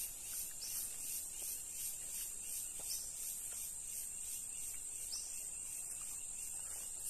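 High-pitched insect chorus: a steady shrill tone with a pulsing chirr that beats about twice a second.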